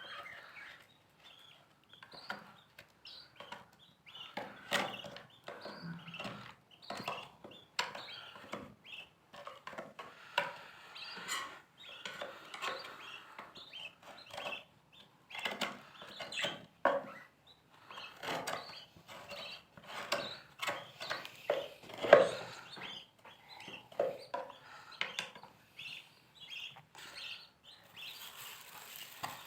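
Irregular knocking, scraping and handling noises from a lovebird nest being cleaned out, with lovebirds chirping on and off.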